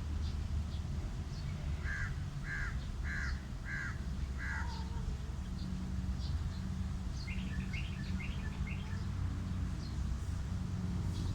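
A crow cawing five times in quick succession, followed by a flurry of higher chirps from small birds, over a steady low rumble.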